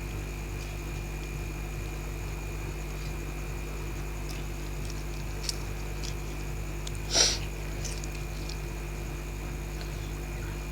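A steady low electrical hum with a faint high whine. About seven seconds in comes a brief rustle, and a small click shortly before it.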